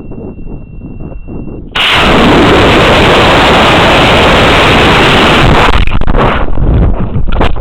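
An Estes C6-3 black-powder model rocket motor ignites about two seconds in with a sudden, very loud rushing roar, heard from a camera riding on the rocket. A steady high beep sounds until the ignition. The roar lasts a few seconds and then gives way to gusty wind buffeting the airframe as the rocket climbs.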